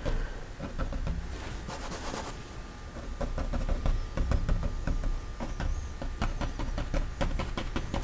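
Light, irregular taps and clicks over a low rumble, several a second in the second half, with a brief hiss about two seconds in, as painting tools are handled.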